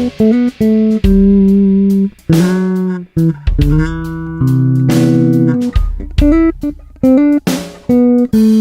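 Ibanez SR300 electric bass playing a lively line of short, punchy low notes with sharp attacks, broken by several brief gaps.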